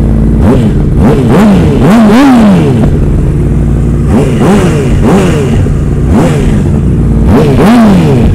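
Honda CBR600RR inline-four sport bike with a full aftermarket exhaust and an Akrapovič slip-on, revved in a series of quick throttle blips. Two longer, higher revs come about two seconds in and near the end. It has a crisp exhaust note.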